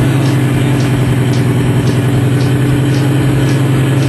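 Diesel engine of a 2004 Kenworth logging truck running steadily with a deep even hum, and a faint high ticking about three times a second.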